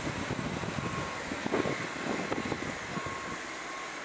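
Boeing 737's jet engines running at idle as the airliner taxis, a faint steady whine, with wind buffeting the microphone in irregular gusts.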